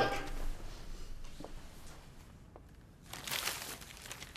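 Paper rustling and crinkling quietly, mostly about three seconds in, with a couple of faint clicks before it.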